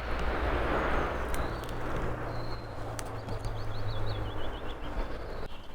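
Steady rustling and handling noise, with a small bird giving a quick run of high chirps about three seconds in.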